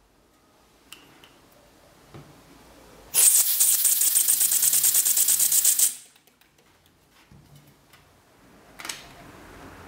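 Canned air hissing into a homemade syringe oscillating (wobbler) engine, which runs fast for about three seconds: the hiss is chopped into a rapid, even pulsing as the rocking syringe opens and closes its air inlet on each turn of the CD flywheel. It cuts off suddenly, with a few light clicks of handling before and after.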